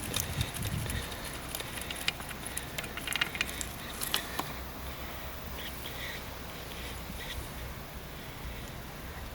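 Tools or small metal parts being handled: a run of light clicks and rattles over the first four seconds or so, then only a faint steady hiss.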